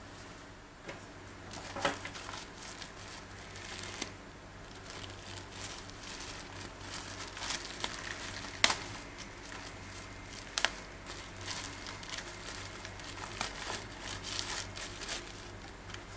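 Clear plastic packaging bag crinkling and crackling as hands open it and draw out a fabric eye mask. The crackles come irregularly, with a couple of sharp snaps a little past halfway.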